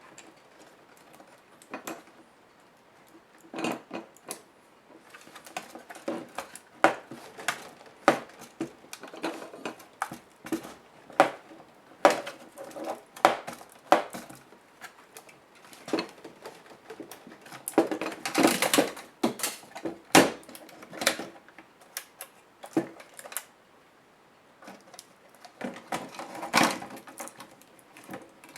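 Irregular clicks, taps and small knocks of plastic and metal laptop parts and tools being handled during disassembly, with a longer rattling clatter about eighteen seconds in and another near the end.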